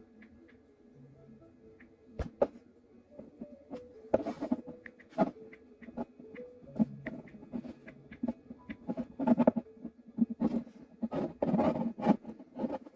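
Irregular clicks, taps and scratching, like small things being handled, sparse at first and much busier from about four seconds in.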